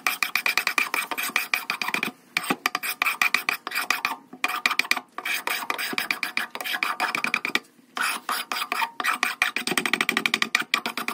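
Steel blade scraping the polyurethane lacquer off a hickory hatchet handle: fast back-and-forth scraping strokes, many a second, with a harsh, rasping edge that sounds horrible. The strokes come in runs with brief pauses about two, four and eight seconds in.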